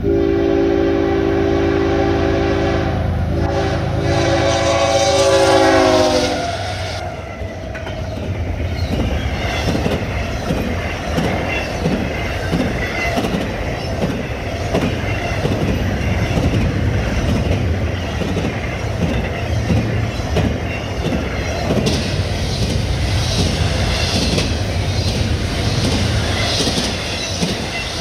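Horn of the lead diesel locomotive of a CSX double-stack intermodal train: a long chord, a short break about three seconds in, then a second blast that drops in pitch as the locomotive passes at about six seconds. After that comes the rumble of the passing train, with the steady rhythmic clickety-clack of the container well cars' wheels on the rails.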